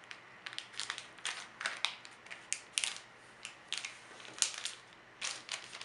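Metallic gift-wrap paper crinkling as it is folded and creased flat by hand: a run of short, irregular crackles.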